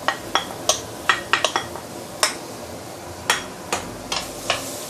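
Kitchen knife tapping and scraping chopped garlic, ginger and onion off a small bowl into a stainless steel wok: about a dozen irregular, sharp metallic clinks and taps.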